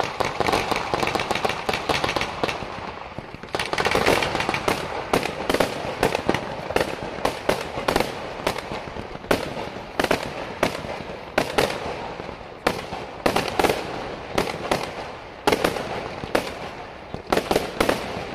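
Night-time mascletà fireworks: aerial shells bursting with crackling stars, a dense, rapid run of sharp bangs one after another. The barrage gets louder about three and a half seconds in.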